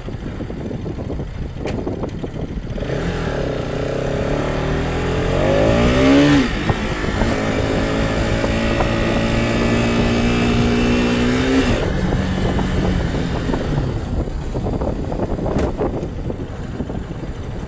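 Bajaj Pulsar RS200's single-cylinder engine from the rider's seat, pulling up in pitch, dropping sharply at a gear change about six seconds in, then climbing steadily again. Near twelve seconds the throttle closes and the pitch falls away, with a constant rush of wind and road noise underneath.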